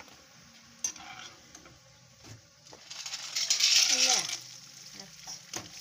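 Dried fryum chips dropped into hot oil in a pan. A few light clicks and rattles come first, then loud sizzling about three seconds in as a handful hits the oil, dying down to a steady frying hiss a second or so later.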